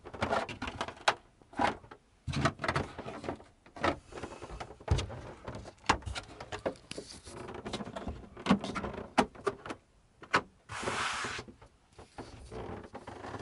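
Irregular clicks, knocks and thumps of hands handling the plastic shower tray and wall panels, with a short rustling scrape near the end.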